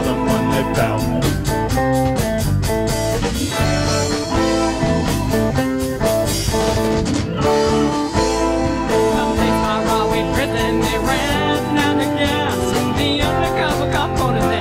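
Live rock band playing: a drum kit keeping a steady beat under acoustic and electric guitars, bass and keyboard, with a voice singing over it in the second half.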